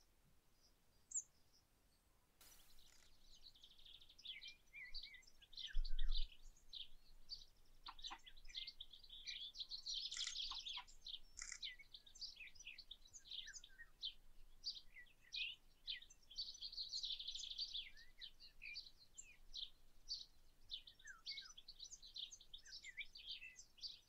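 Several songbirds singing and calling in a morning chorus, many short high chirps and trills overlapping, with a brief low thump about six seconds in.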